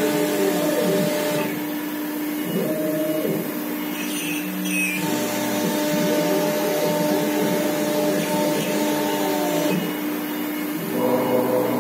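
CNC router's 5.5 kW spindle running at a steady pitch while carving a relief into a board, with the machine's axis drive motors whining in rising and falling glides as the head moves. The mix of tones shifts every few seconds as the head changes direction.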